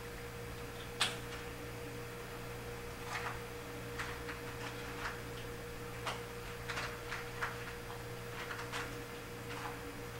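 Two kittens eating at a food dish, making irregular small clicks and crunches, one sharper click about a second in. A steady electrical hum sits underneath.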